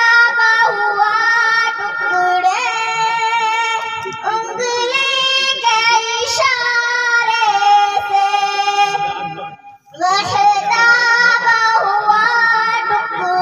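A group of young girls singing a naat together through microphones, in long, held melodic lines. The singing breaks off briefly about ten seconds in and starts the next line.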